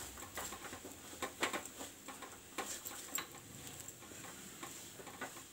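Wooden spatula stirring and pressing a mashed potato filling in a non-stick frying pan, giving irregular light taps and scrapes against the pan.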